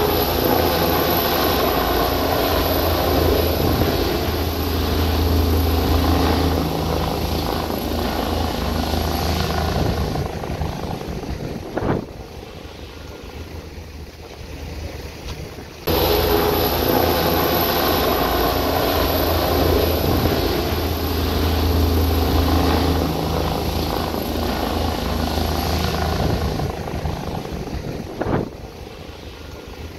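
Helicopter flying overhead: steady rotor and engine noise with a deep low throb. It drops suddenly to a fainter rush about twelve seconds in, cuts straight back to full loudness a few seconds later, then falls away again near the end.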